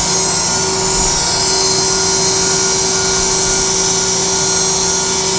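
Moore No. 2 jig grinder's high-speed grinding spindle running steadily with the wheel raised clear of the work: a steady high hiss with a few constant hum tones underneath.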